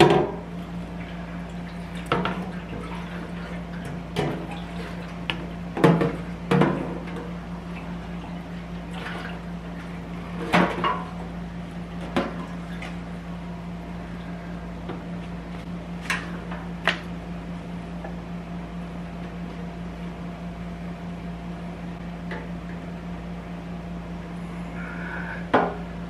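Scattered knocks and clunks of a motorcycle fuel tank being handled and wiggled onto its rubber mounting grommets, over a steady low hum.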